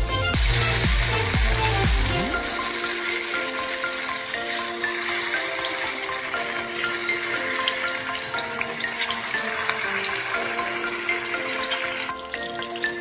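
Chicken meatballs deep-frying in hot oil: a dense sizzle full of sharp crackles and pops, growing quieter about a second before the end. Background music plays along.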